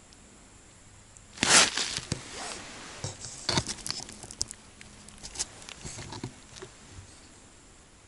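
Close rustling and crunching handling noise with scattered clicks and knocks. The loudest burst comes about a second and a half in, and the quieter crackles die away about seven seconds in.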